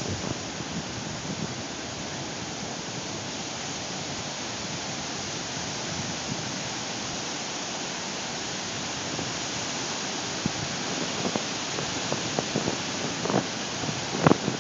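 Ocean surf washing steadily onto the beach, a constant rushing noise, with a few brief buffets of wind on the phone's microphone near the end.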